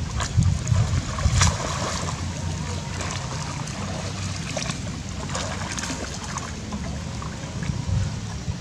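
Macaques swimming in a river: water splashing and lapping around them, with a few sharp splashes, the loudest about a second and a half in, over a steady low rumble.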